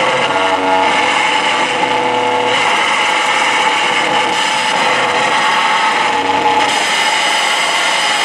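Live harsh noise from a performer's electronic setup: a loud, unbroken wall of dense noise, with a few held pitched tones inside it during the first couple of seconds. The texture shifts about two and a half seconds in and again near the end, when the top gets brighter and a low hum drops out.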